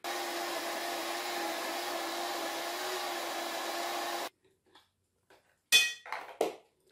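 Countertop blender running at a steady speed, mixing a thin cake batter of milk, eggs, sugar, cornmeal and flour, then switched off abruptly about four seconds in. A few short knocks and clicks follow near the end as the blender lid is taken off.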